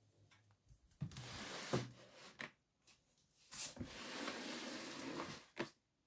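Freshly spun laundry being pulled by hand out of a front-loading washing machine drum: two stretches of fabric rustling and dragging against the drum and door seal, with a few light knocks.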